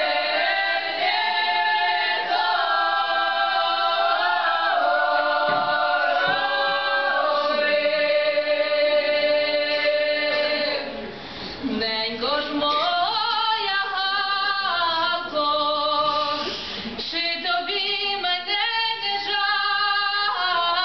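Women's folk ensemble singing Ukrainian traditional song unaccompanied, several voices in close harmony on long held notes. There is a short break between phrases about halfway through, then a new phrase climbs in pitch.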